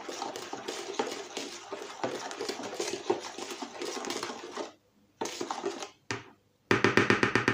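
A spoon stirring kefir in a plastic bowl, with quick clinks and scraping against the bowl, stopping about two-thirds of the way through. Near the end a loud, rapid, evenly pulsing sound begins.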